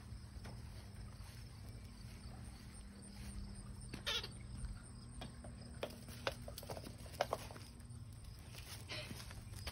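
A puppy's paws and trailing leash clicking and scraping on concrete patio pavers in short, scattered ticks, the strongest about four seconds in, over a low rumble and a faint steady hum.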